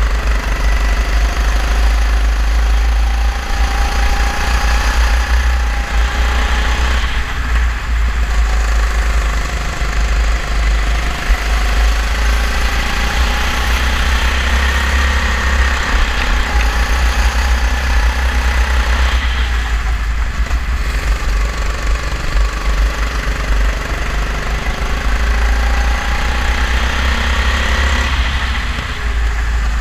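Go-kart engine at racing speed, its pitch climbing along the straights and falling away three times, with heavy wind rumble on the helmet-mounted microphone.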